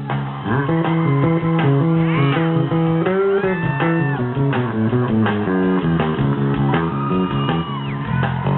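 Live rock band playing: an electric bass line stepping from note to note under electric guitar with bent, gliding notes.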